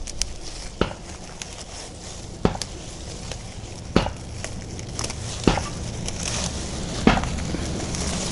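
Rose leaves being plucked off the lower stems by gloved hands: sharp snaps, five louder ones about every second and a half, amid rustling of the foliage.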